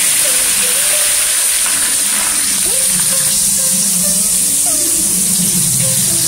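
Hot rice bran oil sizzling steadily as masala-coated taro (chembu) slices deep-fry with curry leaves in a pan.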